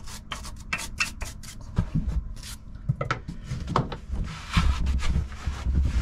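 A metal blade scraping old gasket material off a marine engine's exhaust manifold in quick, repeated strokes, with some dull knocks in the second half.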